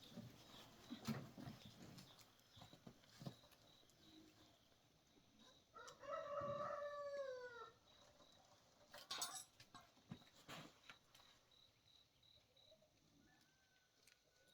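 A rooster crows once, about two seconds long, starting about six seconds in and falling in pitch at the end. Faint, scattered knocks and clicks come before and after it.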